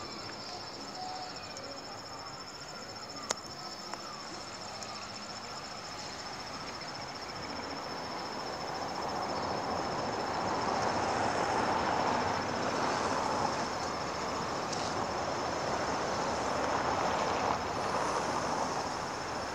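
A pair of distant EMD G22U diesel-electric locomotives approaching; their engine and rail noise grows louder about halfway through and then holds. A thin, steady high insect trill runs throughout.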